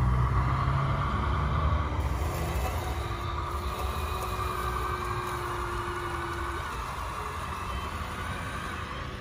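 Scale RC truck running, a low engine-like rumble that gradually fades, with a steady higher tone for a few seconds in the middle.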